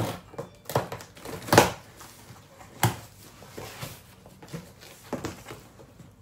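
Cardboard shipping boxes being handled and opened: a few sharp knocks and rustles of cardboard, the loudest about one and a half seconds in.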